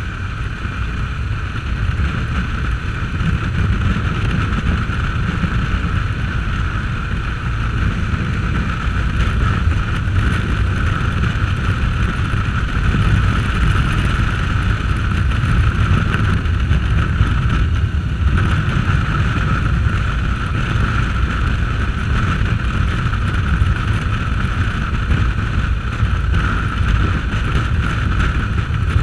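Motorcycle at highway cruising speed: steady wind rushing over the action camera's microphone, with the engine running underneath.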